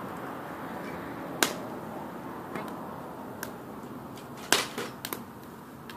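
Bonfire burning with a steady hiss and sharp crackling pops, the loudest about a second and a half in and again about four and a half seconds in.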